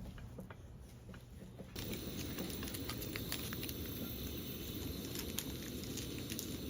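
Food sizzling and crackling in a hot pan, a dense hiss full of small pops that starts abruptly a little under two seconds in.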